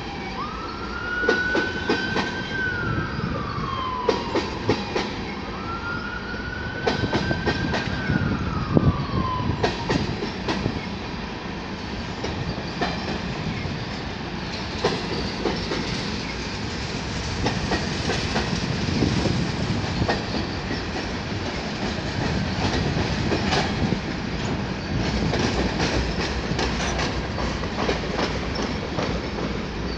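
CN freight train's covered hopper cars rolling past, wheels rumbling and knocking over the rail joints. A siren wails up and down twice in the first ten seconds.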